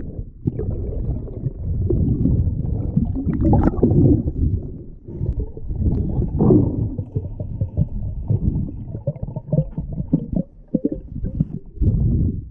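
Muffled underwater sound from a diver's camera housing: low rumbling and gurgling of water moving around it as the diver swims, with irregular small crackles and clicks.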